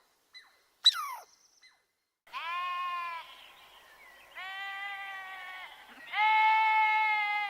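Three long bleats at a steady pitch, each roughly a second long, the last the loudest. About a second in, before them, comes one short sharp call that drops quickly in pitch.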